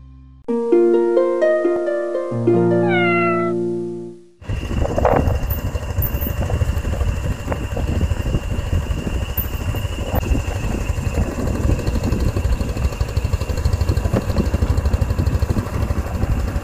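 A short logo jingle of bright chiming notes, a few of them sliding in pitch. About four seconds in it cuts to wind rumbling and buffeting on the microphone of a moving motorcycle, with a thin steady high tone through it.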